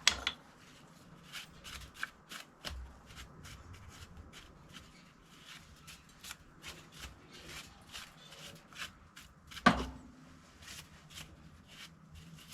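Hand brush sweeping chips off a Myford ML7 lathe in a run of short, scratchy strokes, with a sharp knock at the start and a louder one just before ten seconds in.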